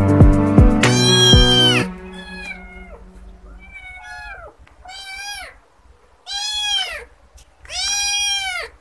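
Young kitten meowing repeatedly: about six high meows, each rising and falling in pitch, the last two the loudest. Background music plays under the first meow and stops about two seconds in.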